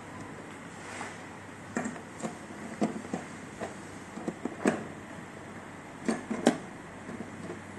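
Irregular clicks and knocks of a hand tool working the seat-hinge bolts of an electric scooter. The sharpest knock comes a little past halfway and two more come near the end.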